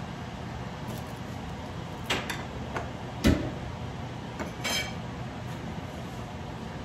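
Dishes and tableware being set down on a table: a few light clinks, a sharp knock about three seconds in that is the loudest, then a short ringing clink.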